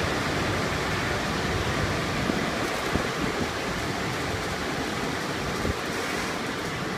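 Sonny's conveyor car wash tunnel equipment running: a steady rush of water spray and machinery, with a few light knocks.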